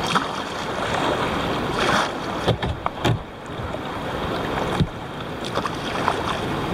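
Fast, shallow river water rushing against a kayak's hull, with short splashes and knocks every second or so.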